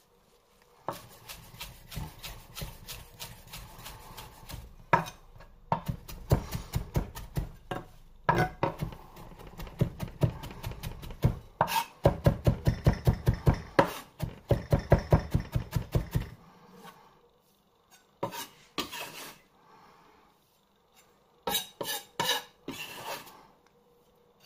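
Knife finely chopping fresh coriander: fast, even strokes, several a second, for about sixteen seconds. After that come only a few scattered taps and scrapes.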